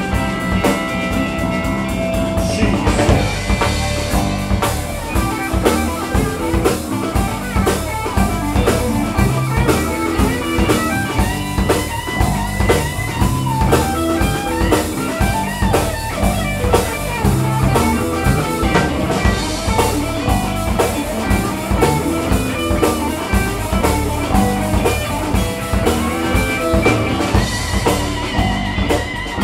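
Live alt-country rock band playing an instrumental break between verses: guitars over a steady drum-kit beat, with no vocals.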